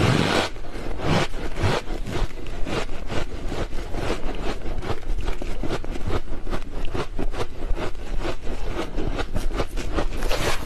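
Close-up crunching of freezer frost being chewed: a dense run of sharp, squeaky crackles after a thick crunch right at the start.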